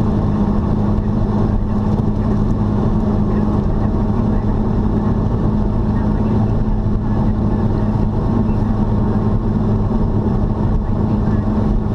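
Car driving steadily at road speed: an engine hum held at one pitch under a constant wash of tyre and road noise, with no change in speed.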